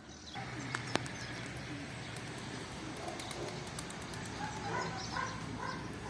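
A dog making small whining sounds, short faint pitched cries in the second half, over a steady outdoor background rush with a couple of light clicks near the start.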